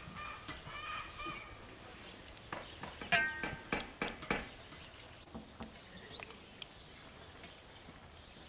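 Fingers squishing and mixing butter and spices in a glass bowl, with sharp clicks against the glass and one short ringing clink about three seconds in. Birds chirp at the start.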